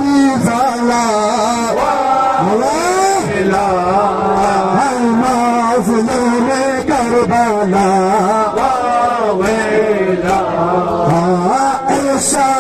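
Male voices chanting a Shia Muharram noha (mourning lament), with rhythmic chest-beating slaps of matam from the crowd.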